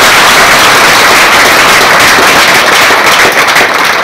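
Audience applauding: loud, dense clapping that starts to thin out near the end.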